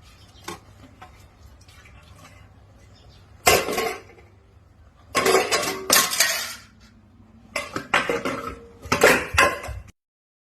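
Dishes and cutlery clattering in several loud bursts: one short clatter, then two longer runs, before the sound cuts off suddenly.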